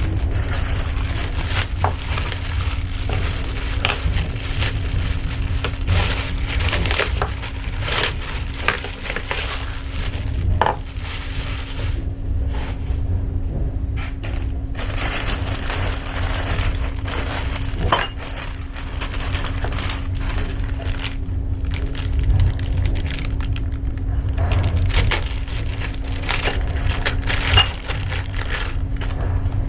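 Handling noises from repair work: irregular small clicks, taps and crinkling as parts and tools are picked up and moved, over a steady low hum.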